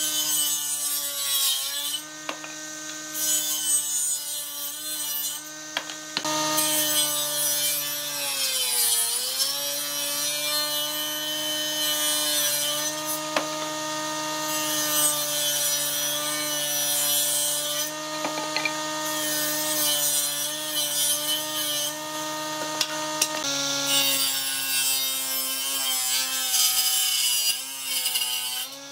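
Table saw blade on an old combination woodworking machine cutting thick scrap wood in several passes, with short breaks between cuts. The motor's steady hum sags in pitch as the blade takes the load, most deeply about nine seconds in.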